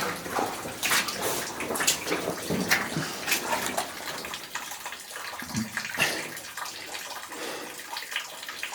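A person in chest waders wading through water, sloshing and splashing with each step at an irregular pace.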